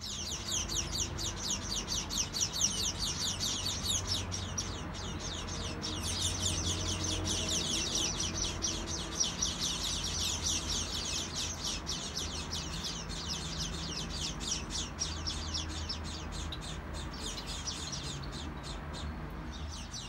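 Small birds chirping in a rapid, continuous high-pitched chatter, many short notes a second.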